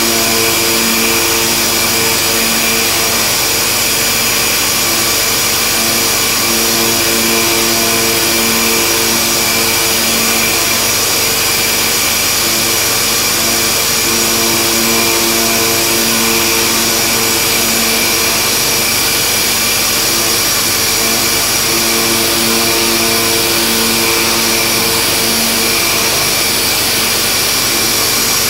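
1995 Haas VF-3 CNC vertical mill cutting an aluminium block with an end mill in very small steps: a steady loud hiss of spindle and cutting, with a hum of a few tones that drops out and comes back every few seconds as the cutter works through its passes.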